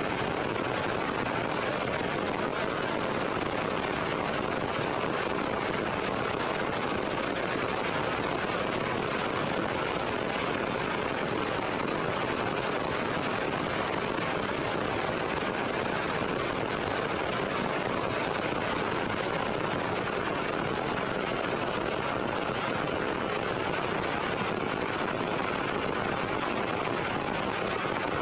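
Heavy rain pouring steadily onto forest foliage: an even, unbroken hiss that never lets up.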